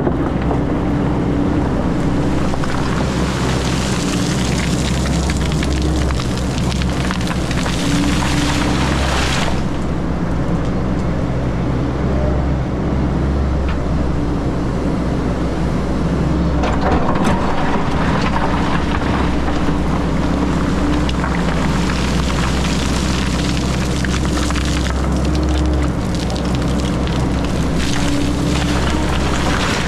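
XCMG 180 crawler excavator's diesel engine running steadily under work, with a hissing working noise that swells and fades in long stretches over it.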